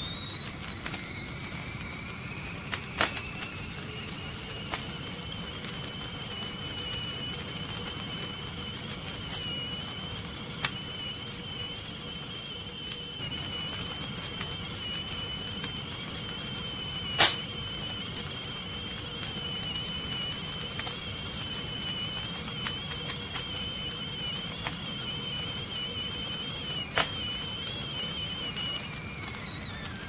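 Stovetop tea kettle whistling at the boil. The whistle rises in pitch over the first few seconds, holds with a slight waver, then drops and fades just before the end. Under it runs a low steady rush of gas flame, with a few sharp clicks, the loudest about halfway through.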